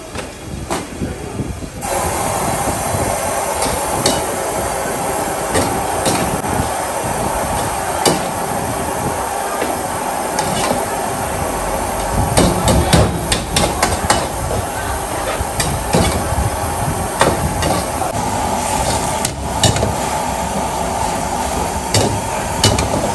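Irregular sharp knocks and chops, thickest about twelve to fourteen seconds in, over a steady hum that switches on about two seconds in.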